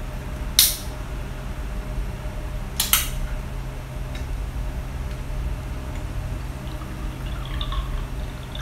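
Two sharp clicks as a can of Red Bull is taken from a basin of glass bottles, then near the end the energy drink is poured into a glass, all over a steady low hum.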